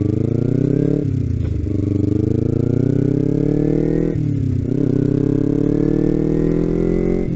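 Kawasaki Ninja 250's parallel-twin engine pulling away from a stop and accelerating. The revs climb in each gear and drop at upshifts about a second in, about four seconds in and again near the end.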